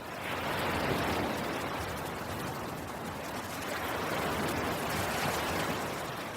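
A rushing, water-like noise with no tune or voice in it, swelling up twice, about a second in and again around four to five seconds.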